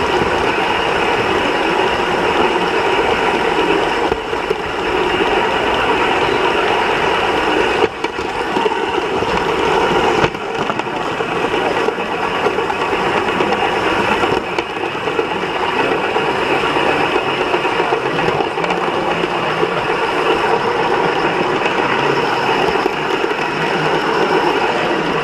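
Gauge 1 live-steam model train running along its track, heard from on board: a steady, fast mechanical clatter and rush of wheels on rails and the running gear.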